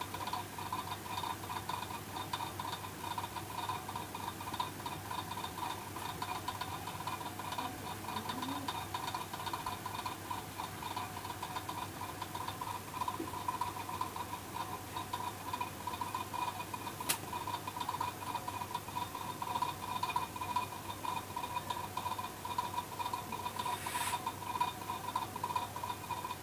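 Steady electrical hum and hiss with a constant mid-pitched drone, broken by two sharp clicks, one about two-thirds of the way through and one near the end.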